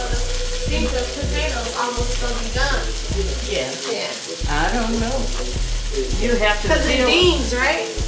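Background beat music: deep bass notes that start and stop sharply, regular drum hits, and pitched voice-like lines over a steady hiss.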